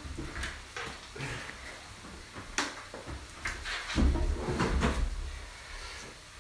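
Scattered knocks and clicks of kitchen knives being handled and set down on a plastic cutting board, with a louder, duller run of knocking about four seconds in.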